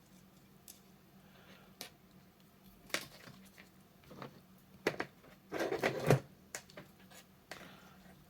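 Small parts and tools being handled on a workbench: scattered light clicks and taps, with a short burst of rustling and knocking a little past halfway.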